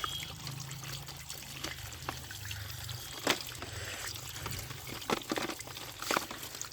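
Water trickling and pouring over muddy toy vehicles being washed, with a few sharp knocks of the toys being handled, about halfway through and twice near the end.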